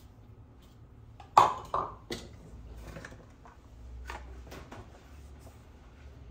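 Plastic kitchenware clattering on a countertop: two sharp knocks a little over a second in, the first the loudest, as a bowl is set down and a plastic tub handled, followed by lighter clicks and taps as its lid comes off and a scoop goes in.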